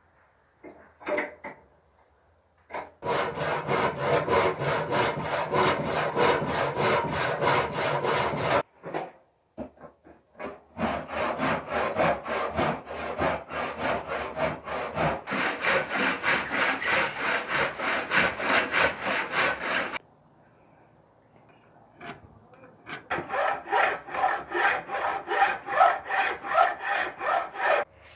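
Saw cutting wood in quick, even back-and-forth strokes, in three runs with short pauses between them.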